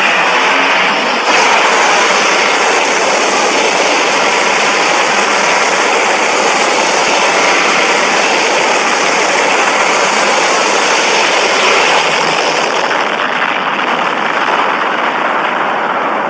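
Loud, steady roaring rush of noise, like a jet blast, from a monster-film sound effect. It steps up slightly about a second in and loses some of its hiss near the end.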